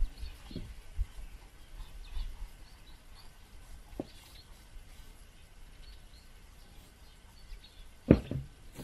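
Outdoor ambience with faint bird chirps, a few soft knocks, and a louder low thump near the end.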